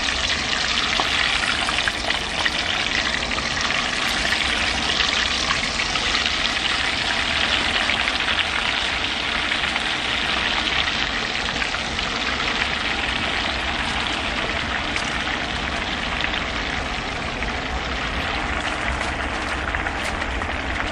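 Chicken wings deep-frying in oil at about 355°F in a Dutch oven: a steady, dense sizzle and crackle as pieces are lowered into the oil, easing slightly near the end.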